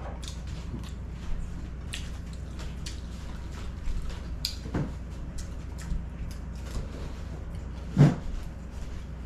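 A person eating shrimp and rice by hand, close to the microphone: chewing and small mouth clicks and smacks. There is one dull thump about eight seconds in.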